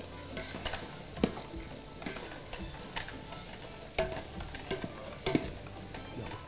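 A long metal ladle scraping and knocking against a large aluminium pot as cooked chickpeas are stirred into frying onions and raisins. The knocks come at irregular moments over a steady sizzle.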